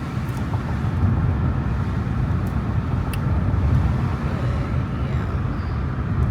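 Steady low rumble of a car moving on the road, with a few faint clicks.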